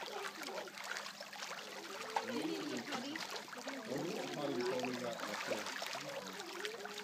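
Indistinct voices of several people talking, none of the words clear, over a steady background hiss.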